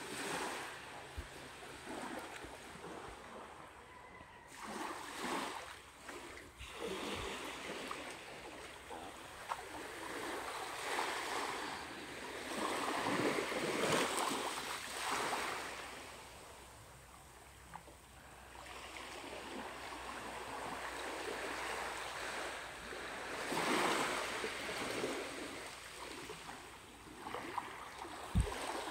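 Small waves washing in and lapping on a sandy shore, the wash swelling and easing every few seconds, loudest about halfway through. A short thump near the end.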